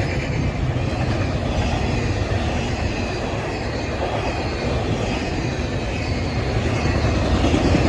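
Intermodal freight cars of a long train rolling past, with the steady noise of steel wheels on rail.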